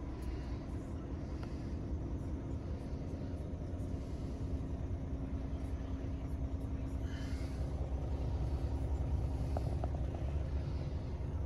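Scania R450's 13-litre six-cylinder diesel idling steadily, heard from inside the cab as a low, even rumble with a faint constant hum.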